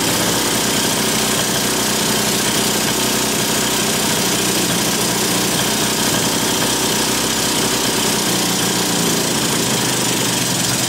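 Yamaha Jog scooter's 50 cc two-stroke engine running steadily with its air filter off while the carburettor adjusting screws are set, so that it keeps running without the throttle held open.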